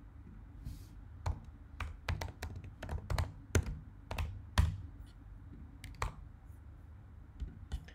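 Computer keyboard typing: about a dozen irregular key clicks while a short filename is typed, over a faint low background hum.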